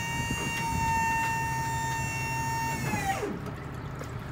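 Electric-hydraulic pump motor of a box truck's fold-under liftgate running with a steady whine while the platform unfolds. About three seconds in the whine slides down in pitch and stops as the motor winds down.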